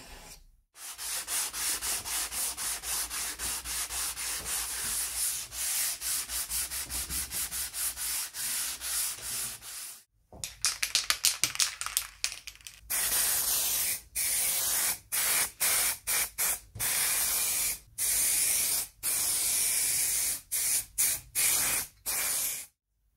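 Wooden rocking-horse rocker sanded by hand with a sanding pad, rubbed back and forth in quick strokes, several a second. After a short pause near the middle, a spray hisses in a run of short puffs, then in longer blasts of about a second with brief breaks, as the wood is sprayed; these blasts are the loudest part.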